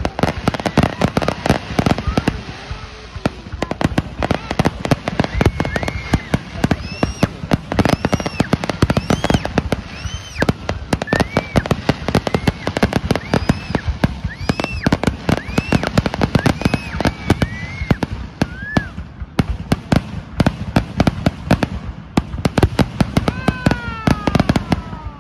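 Aerial fireworks display: a dense, continuous string of bangs and crackling bursts, with high whistles rising and falling over them.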